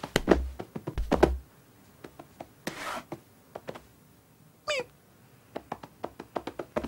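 Cartoon cat sound effects: several soft thumps and knocks, a brief swish, then a single short meow that falls in pitch, followed by a run of light taps.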